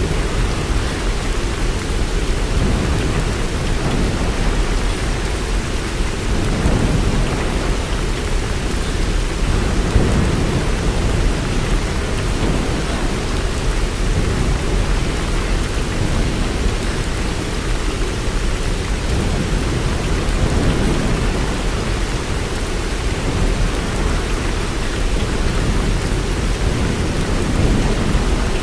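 Steady, unbroken rain with a deep low rumble underneath that swells and eases every few seconds.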